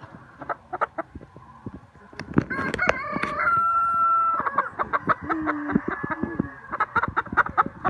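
Rooster crowing once, a long call of about four seconds starting a couple of seconds in: it holds a high note, then ends on a lower drawn-out note.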